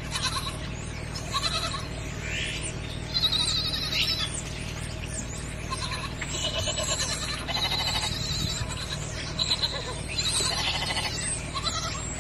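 Goats bleating again and again: high, quavering calls about a second apart, some overlapping, over a steady low hum.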